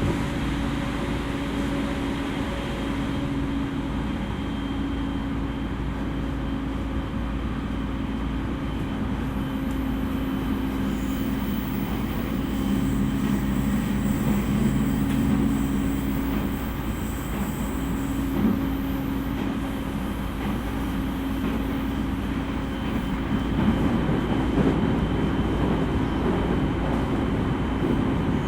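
Running sound inside an E231-series electric commuter train: a steady rumble of wheels on rail with the low hum of the traction motors. A faint high whine comes in through the middle, and the rumble grows a little louder and rougher near the end.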